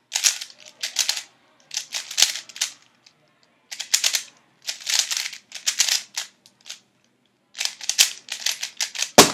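Premium Cubicle Thunderclap 3x3 speed cube being turned fast in a timed solve: bursts of rapid plastic clicking and clacking with short pauses between them. A single sharp knock near the end is the loudest sound.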